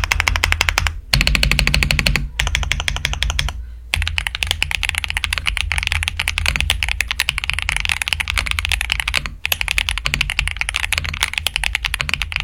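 Fast typing on an AXE YG102 gasket-mount mechanical keyboard with factory-lubed LCET Starry Flower linear switches and PBT keycaps. It is a dense, continuous stream of keystrokes with a few brief pauses, the typing sound test of the board.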